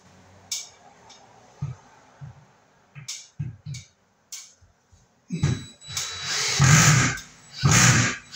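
Power drill driving a screw up into a wooden ceiling beam, run in several loud spurts in the last three seconds. A few light clicks and knocks come before it.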